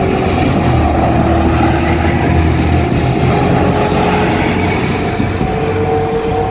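Diesel railcar passing over a level crossing, its engine and wheels rumbling heavily, with the crossing's warning bell ringing in a steady repeating 'kan-kan'. The low rumble eases after about three seconds, and the bell comes through clearly near the end.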